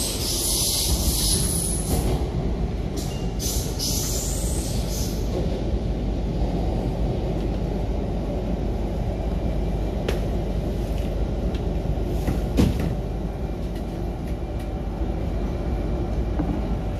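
MTR K-Train electric multiple unit heard from inside the passenger car while running alongside an underground station platform: a steady low running rumble of wheels and motors, with a hiss for the first few seconds and a couple of sharp clicks about ten and twelve seconds in.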